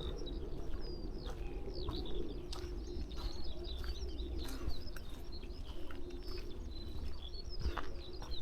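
Birds singing and calling together: a continuous high twittering of quick chirps and whistles over lower cooing calls.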